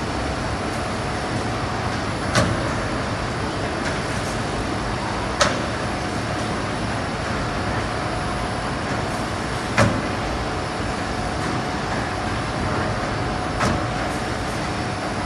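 Metalbud Nowicki MH-424 brine injector running: a steady machine noise with a faint hum, and a short clunk about every four seconds, four in all, as the needle head strokes and the conveyor moves the pork loins on.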